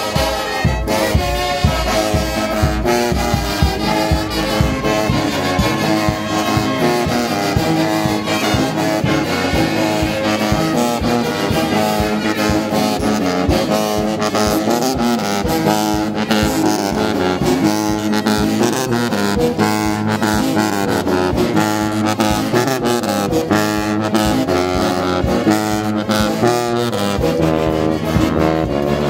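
Brass band playing: trombones, sousaphones and baritone horns sounding together in a continuous full-ensemble piece of sustained chords and a moving melody.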